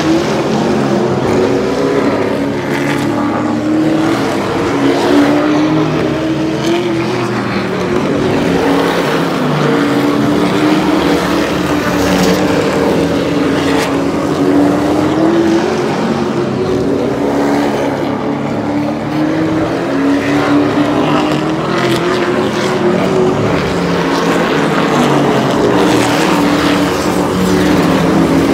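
Race cars' engines running at full throttle around a short oval track. The engine note repeatedly climbs and drops in pitch every few seconds as the cars come past the pit wall and go off down the track.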